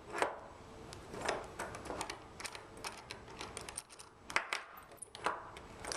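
Stainless steel sanitary tri-clamps being loosened and opened by hand: irregular light metallic clicks and clinks as the wing nuts turn and the hinged clamp bands knock against the steel fittings.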